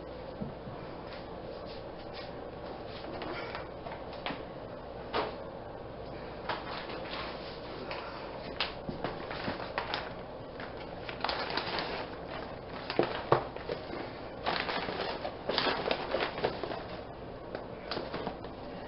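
Rustling and crinkling of a plastic reusable shopping bag being handled and emptied, with scattered clicks and light knocks of cardboard food boxes. The handling gets busier in the second half, with the loudest knock a little after the middle.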